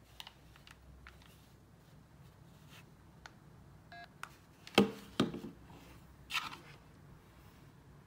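A Nokia 918 analog mobile phone being handled: light clicks, a brief keypad beep about four seconds in, then two loud knocks as the plastic handset is set down on a wooden table, and a short rustle after.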